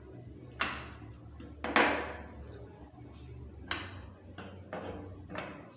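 Plastic push-up handles knocking and clicking against a plastic push-up board as they are lifted and fitted into its holes: a series of about seven short, sharp knocks, the loudest about two seconds in.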